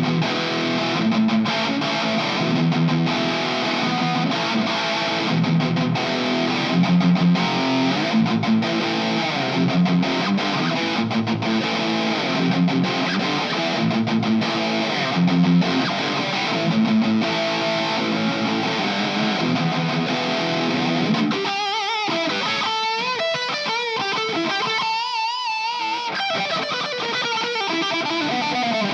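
Donner Hush X electric travel guitar played through a Donner Arena 2000 multi-effects unit on a high-gain distorted patch, chugging through heavy rhythm riffs. About 21 seconds in the riffing gives way to held, wavering notes with vibrato for a few seconds, then the chugging resumes.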